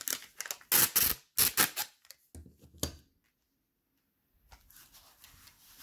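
Clear packing tape being pulled, torn and smoothed onto corrugated cardboard: a quick run of sharp crackling strokes, loudest about one to two seconds in. Then a brief dead silence and faint rustling.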